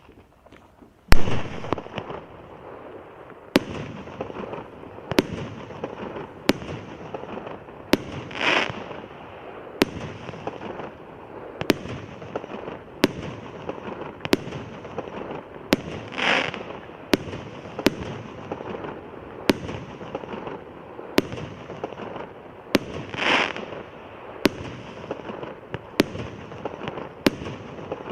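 A 25-shot, 1-inch-calibre fireworks cake firing its shots one after another, about one sharp report a second, starting with the loudest about a second in. Crackling fills the gaps between reports, and three longer, louder hissing bursts stand out.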